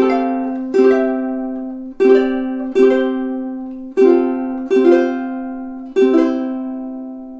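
Kai KTI-20 Pacific walnut tenor ukulele, chords strummed in pairs about two seconds apart, seven strums in all. The last chord, a little past six seconds in, is left to ring and fade away.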